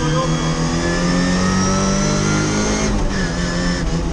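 Lada 2107 Group A rally car's engine heard from inside the cabin, accelerating with its pitch slowly rising, then dropping about three seconds in.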